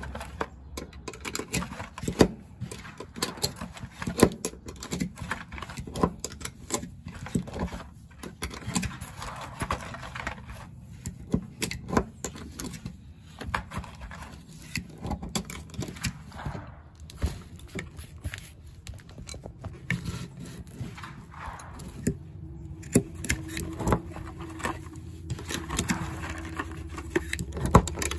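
Plastic magazine loader clicking and scraping as 9mm cartridges are pressed one at a time into a Glock 43x magazine, with a sharp click every second or two.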